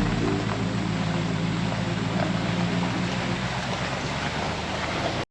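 Car towing a caravan on the road, heard as a steady low engine hum under a steady rushing noise.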